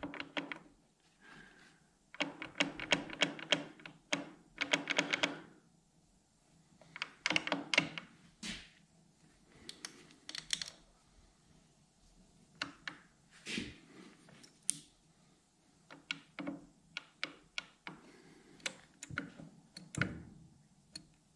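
Bursts of rapid metallic clicking and clacking from the spur gears in the open gearbox of a Smithy CB-1220 XL lathe-mill as they are rocked back and forth by hand. The teeth knock through the backlash: the gear train has excessive slop.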